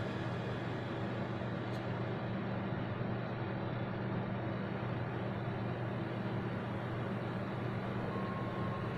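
Steady low droning rumble with a windy hiss, the ambient opening of a music video's soundtrack; a thin high tone enters near the end.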